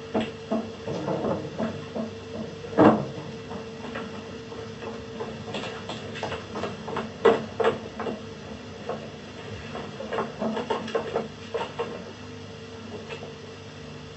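Irregular knocks and clicks, with one louder thump about three seconds in, over a steady hum from the old TV recording.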